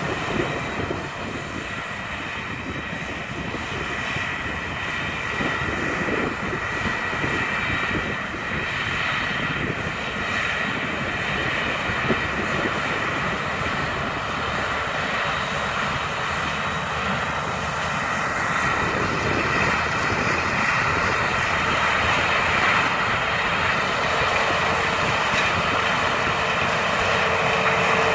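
Claas Lexion combine harvester harvesting maize, its diesel engine and threshing machinery running with a steady drone and a thin whine, growing louder as it draws closer. A tractor pulling a grain cart runs alongside.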